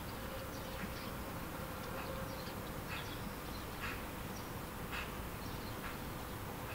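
Quiet ambience: an even low rumble with a faint steady hum, and short high chirps every second or so.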